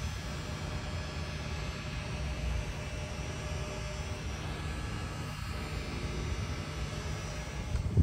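Heavy-duty pickup truck's engine idling, heard close from under the truck: a steady low rumble with a faint steady whine above it, ending in a bump as it cuts away near the end.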